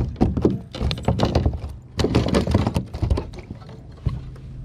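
Irregular knocks and thumps against a plastic kayak hull as a small largemouth bass is landed and handled in the boat. The knocks come thick and fast at first and thin out after about three seconds.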